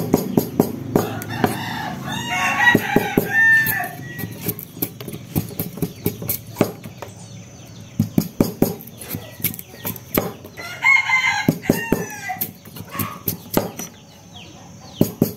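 A rooster crows twice, about two seconds in and again about ten seconds in. Under the crows come many sharp, irregular knife strokes as the rind is cut off a stalk of sugarcane.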